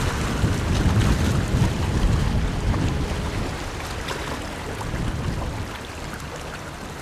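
Distant boat engines of a customs launch and a police launch running on the water, mixed with a low wind rumble on the microphone. The sound gets quieter in the second half.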